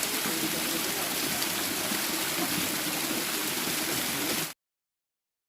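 Steady roar of a waterfall, an even rush of falling water that cuts off abruptly about four and a half seconds in.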